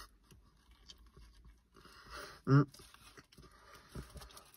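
A mouthful of burger being chewed with the mouth closed: quiet wet chewing and breaths through the nose, with one short hummed 'mmm' of enjoyment about halfway through.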